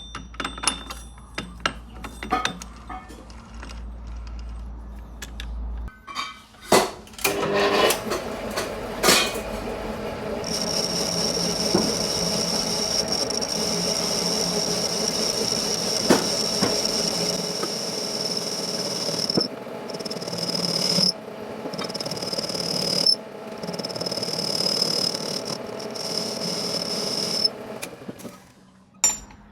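Several knocks and clicks, then a power tool runs with a steady high whine for about seventeen seconds, cutting out briefly three times before it stops.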